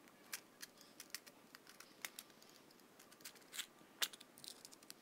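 Plastic blister packaging being cut and worked open with a utility knife: faint, scattered clicks and crinkles, with a few sharper ones near the end.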